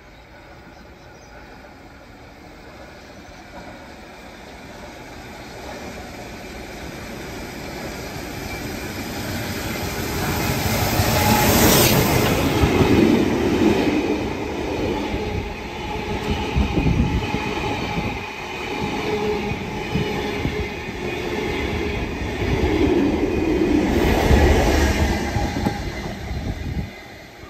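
A locomotive-hauled heritage passenger train running through a station without stopping. Its noise builds from a distance to a loud peak about twelve seconds in as the head of the train passes, then comes in repeated surges as the carriage wheels go by. A second peak near the end is the rear locomotive, a 49 class diesel-electric, passing and drawing away.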